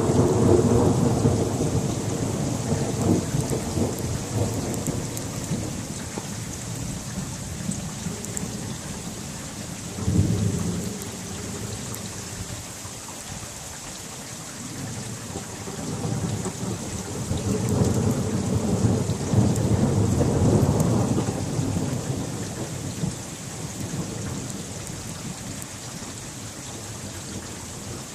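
Thunder rolling over steady rain. A rumble dies away over the first few seconds, a short one comes about ten seconds in, and a longer rolling rumble swells and fades in the second half.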